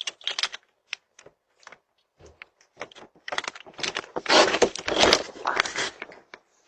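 Keys jangling and clicking as they are handled, sparse at first, then a dense run of rattling from about three to six seconds in.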